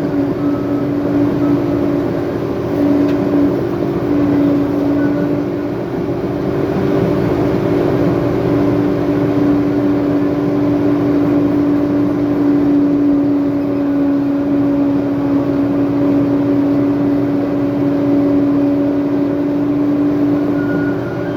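Heavy earthmoving machine's diesel engine running steadily under load, with a steady whine over its rumble.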